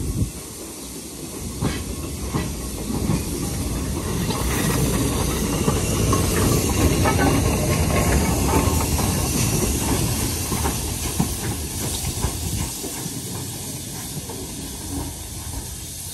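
Austerity 0-6-0 saddle tank steam locomotive and its train passing close by, with steam hissing and wheels clicking over the rail joints. The sound builds to its loudest about halfway through, then fades.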